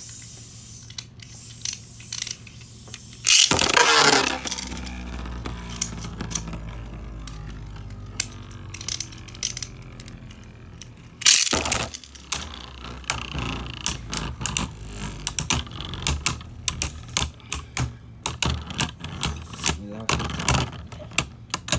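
Two Beyblade Burst spinning tops launched one after the other into a plastic stadium, each launch a loud ripping whirr, the first about three seconds in and the second about eleven seconds in. After the first launch the top's whirr slowly falls in pitch; from about thirteen seconds on the two tops clack against each other and the stadium in quick, repeated sharp knocks.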